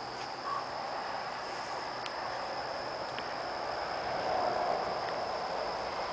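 Steady high-pitched chirring of crickets or similar insects, over a faint low rush of outdoor background noise that swells a little about four seconds in.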